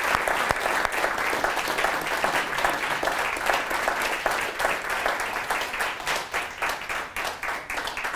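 Audience applauding, the clapping thinning into separate claps and fading toward the end.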